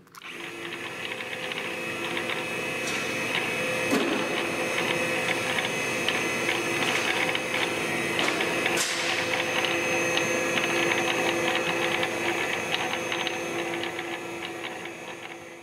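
Deckel SOE tool and cutter grinder switched on with a click, its motor and wheel spindle running up to speed over about a second. It then runs steadily with a constant hum and whine and a light rattling tick, with a couple of sharper clicks along the way.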